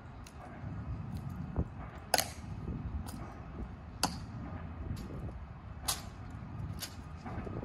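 The Tomb guard sentinel halts, turns and shifts his M14 rifle from one shoulder to the other: sharp clicks of his metal-tapped heels on the stone and clacks of hands striking the rifle. The loudest come about two and four seconds in and again near six seconds, over a low steady background rumble.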